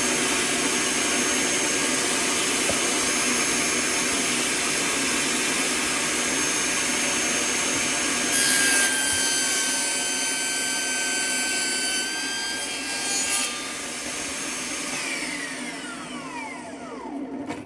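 Bosch GTS 18V-216 cordless table saw running at full speed with a steady whine. About eight seconds in, it rips a board of MDF, with the pitch and tone changing under the cut for about five seconds. Near the end the blade winds down, its whine falling away.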